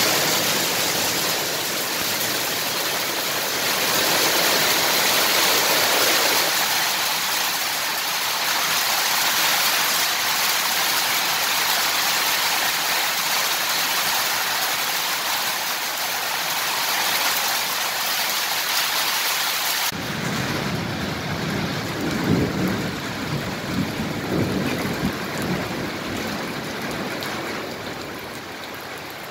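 Heavy rain falling, with water pouring off a roof edge: a dense, steady hiss. About two-thirds of the way through the sound changes abruptly to a lower, gustier rush with uneven rumbling swells.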